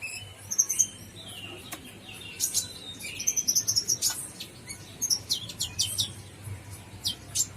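Olive-backed sunbird (kolibri ninja) calling: a busy run of quick, high, thin chirps and short trills, phrase after phrase.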